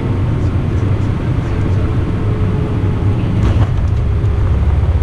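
Cabin noise inside an Airbus A319 just above the runway before touchdown: a steady, loud low rumble of airflow and jet engines with a faint steady tone, and a single brief click about three and a half seconds in.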